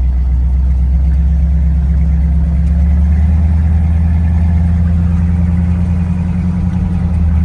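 A 1973 GMC pickup truck's engine running steadily while the truck is driven, a loud low drone that holds an even pitch.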